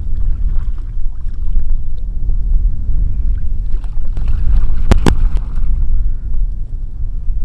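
Wind buffeting the microphone, a steady low rumble, with two sharp clicks in quick succession about five seconds in.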